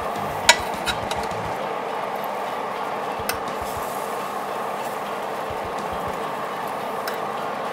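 Metal tongs clicking against a glass baking dish as chicken legs are turned in an open oven: one sharp click about half a second in, then a few fainter ones. A steady hiss from the open oven runs underneath.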